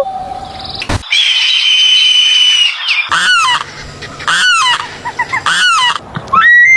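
Animal calls: a long, steady, shrill call held about two seconds, then three short calls that each fall in pitch, about a second apart, and another long high call starting near the end.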